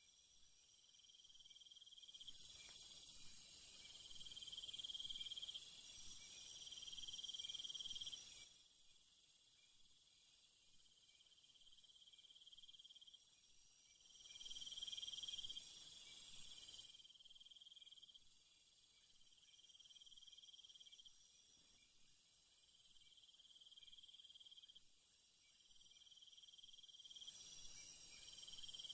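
Steady high-pitched chirring of an insect chorus. A louder, higher hiss swells in twice, first for about six seconds and later for about three.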